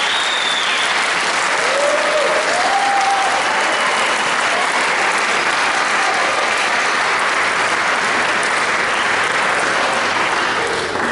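Audience applauding steadily, tailing off at the end.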